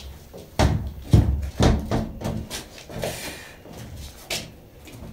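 A wooden toilet-stall door knocking and clattering as it is pushed open: several sharp knocks in the first two seconds, a short scrape, and one more knock near the end.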